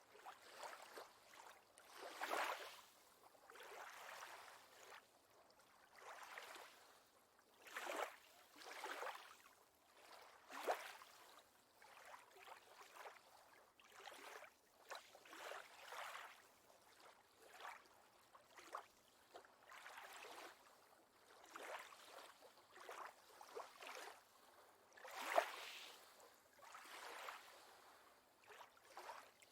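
Faint water lapping in small irregular splashes and swells, one every second or two, with a few slightly louder splashes.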